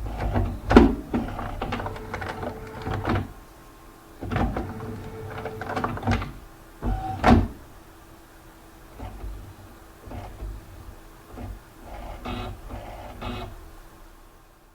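Flatbed computer scanner at work: its carriage motor hums and whirs in stretches, broken by three loud mechanical clunks as the scan head starts and stops, then it falls quiet at the end.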